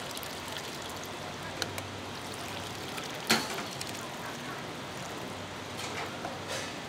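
Broth poured from a steel pot into a wide pan of fried pork-skin soup: a steady splashing stream of liquid, with one sharp metal clink about three seconds in.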